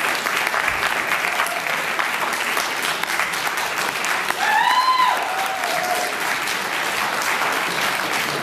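Audience applauding steadily, with one short high cheer from the crowd that rises and falls about four and a half seconds in.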